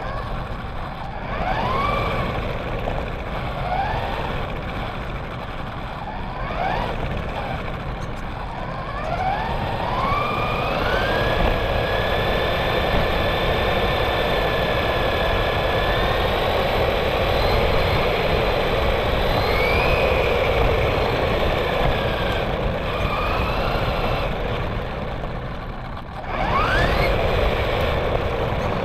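RC car's motor whining, its pitch climbing with each burst of throttle: several short pulls early on, a long steady run, then another quick climb near the end. Under it, the rumble and hiss of its tyres rolling over asphalt, heard from a camera mounted on the car.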